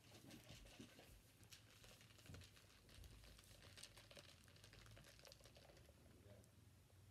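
Faint handling noise from a plastic tumbler with a straw being picked up and held, with scattered light clicks and rustles.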